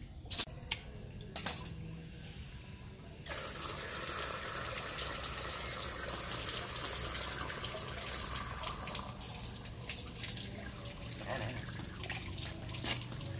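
Water running steadily from a pipe, coming in suddenly about three seconds in after a few light clicks.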